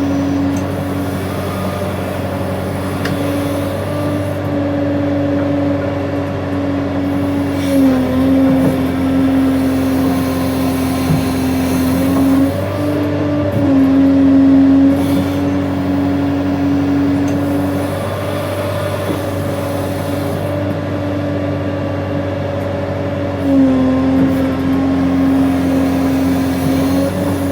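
Case 580N backhoe loader's diesel engine running steadily at working revs, its pitch dipping briefly a few times as the hydraulic digging loads it.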